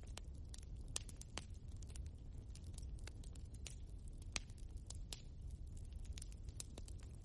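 Logs burning in a fireplace, crackling: irregular sharp pops and snaps, several a second, over a steady low rumble of the flames. Two louder pops come about a second in and just past the middle.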